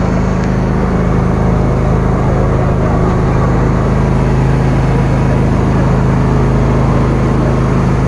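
Motor passenger boat's engine running steadily while under way, a constant low hum, with water rushing along the hull.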